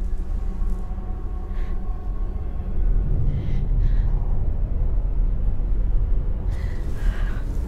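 A low, steady rumbling drone of horror-film sound design, with a woman's short gasping breaths every second or two, heavier near the end.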